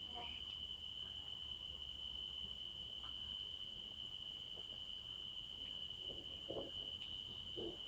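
Insects trilling steadily on one high, unbroken pitch, over a faint low hum.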